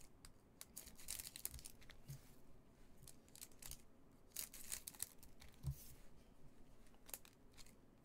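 Scissors snipping across the top of a foil trading-card pack, with faint crinkling of the wrapper in short, scattered crackles.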